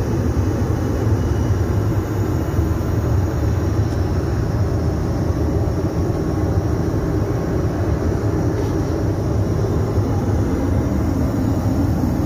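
Steady low rumble of an airliner in flight, heard inside the aircraft's lavatory.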